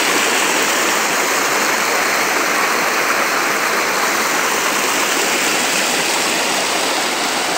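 Mountain river water flowing and rushing over rocks, a steady, unbroken sound.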